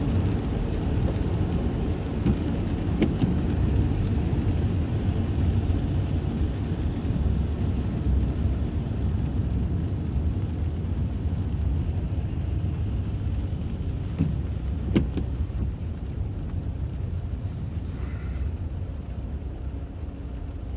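Car driving, a steady low rumble of engine and road noise, with a couple of brief knocks, the loudest about fifteen seconds in.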